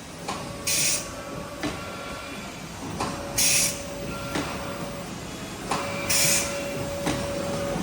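Automatic liquid packing machine running through its form-fill-seal cycle about 21 times a minute. A short hiss comes roughly every three seconds, three times, each followed by a click, over a steady hum.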